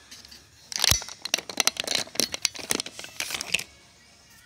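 Close crinkling and rustling: a dense run of sharp, irregular crackles lasting about three seconds, starting with one louder knock.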